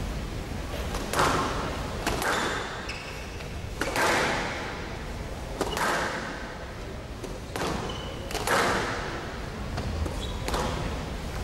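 Squash rally: the ball cracking off the rackets and the walls every second or two, each hit ringing in the hall, with a few short high squeaks from court shoes.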